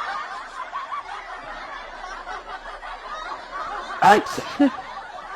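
Muffled snickering and laughter, then a sudden loud burst about four seconds in.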